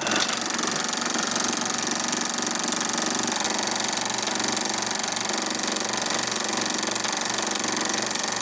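Film projector running: a steady mechanical whir and clatter with an even, fast rhythmic pulse.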